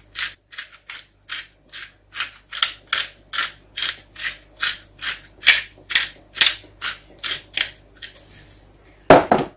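Hand pepper mill being twisted, grinding peppercorns in a rhythmic crunch of about two to three strokes a second. The grinding stops near the end and a single louder knock follows.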